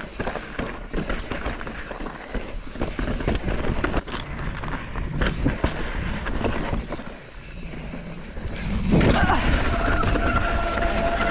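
Mountain bike descending a rocky trail: tyres clattering over rock with frequent knocks and rattles, and wind rushing over the microphone. Near the end it grows louder and a steady tone comes in.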